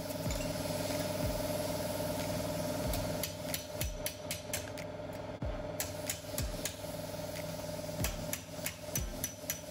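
Hammer striking a metal strip clamped in a bench vice to bend it over the jaws: irregular sharp metallic blows, a few at first and then frequent from about three seconds in, over a steady background hum.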